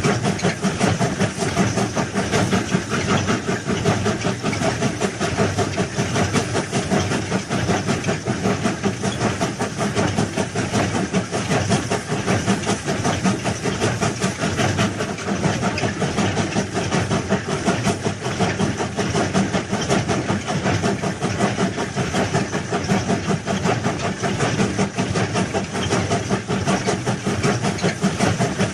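Large railway track-laying machine running: a steady, dense mechanical clatter with hiss that holds unchanged throughout.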